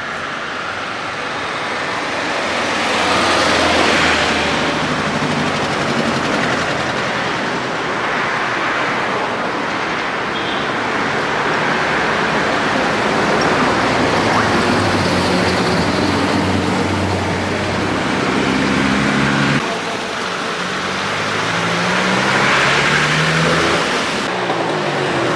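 Steady road traffic noise with motor vehicles passing; in the second half an engine's pitch climbs and drops several times, as with a vehicle accelerating and changing gear.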